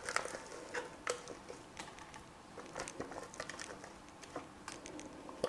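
Dough scraper scraping thick cream-cheese and banana filling out of a stainless steel food-processor bowl: faint soft squelching scrapes with scattered light clicks and taps.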